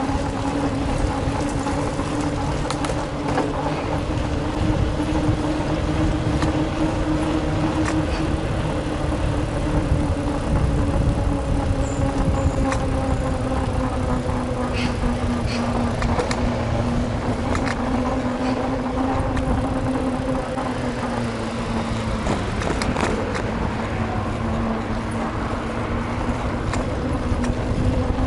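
Steady road and wind noise from a bicycle ride on city streets, with a low hum that sinks slowly in pitch and a few faint clicks.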